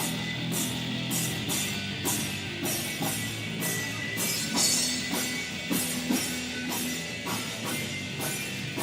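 Rock band playing live: electric guitar, bass guitar and drum kit, with cymbal and snare hits on a steady beat of about two a second.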